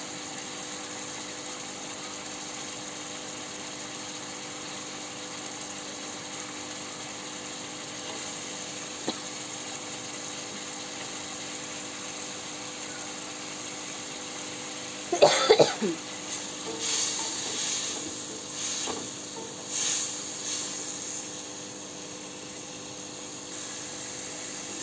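Potatoes frying in a kadai of hot oil and spice paste, a steady sizzle and hiss. About fifteen seconds in there is a brief fit of coughing, the loudest sound, followed by several bursts of louder sizzling and scraping as a wooden spatula stirs the pan.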